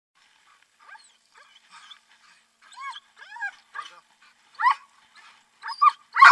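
A mantrailing dog whining and yelping in short high calls that rise and fall, starting about a second in and getting louder toward the end, excited as it waits to be sent on the trail.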